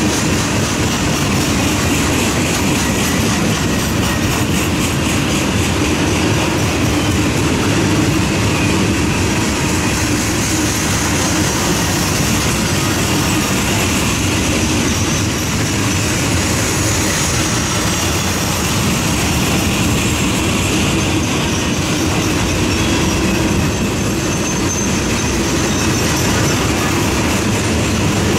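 A passing train's cars rolling by on the rails: a steady, loud rush of wheels on track with rapid clicking, unbroken throughout.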